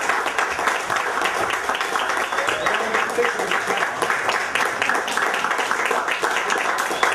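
Audience applauding: many people clapping steadily, with a few voices mixed in.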